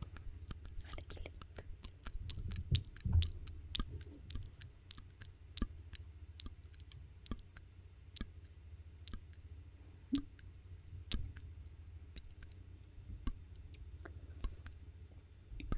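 Close-miked ASMR mouth sounds: short, irregular clicks and pops, several a second, with two louder low thumps about three seconds in.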